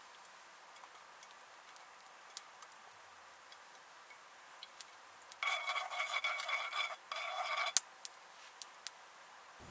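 Scattered light taps and clinks of cooking utensils, then about two seconds of a louder scraping sound with a ringing tone and a short break. It ends in one sharp click about eight seconds in.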